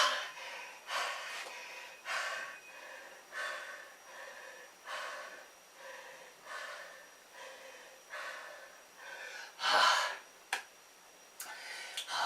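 A man breathing hard and fast, winded from a long set of push-ups: a run of short, even breaths, with one louder gasp about ten seconds in.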